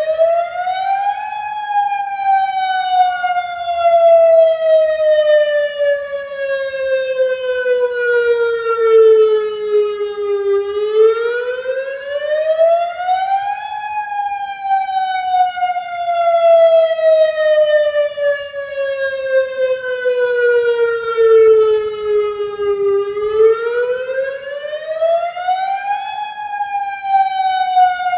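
Federal Signal DSA electronic outdoor warning siren sounding a wail during its monthly test. The pitch rises quickly, then slides slowly down over about nine seconds, repeating about every twelve seconds.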